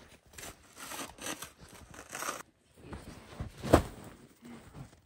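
Rustling, scraping and crunching as the tent bag is handled and people and the dog move about in the snow, with one sudden loud thud a little under four seconds in.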